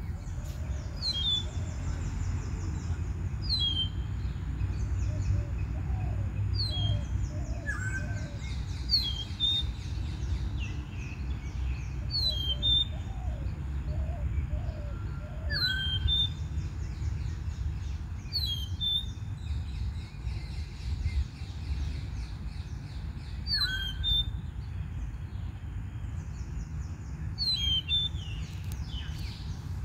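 Songbirds calling outdoors: one bird repeats a short, high, falling chirp every second or two, and other birds call now and then, over a steady low rumble.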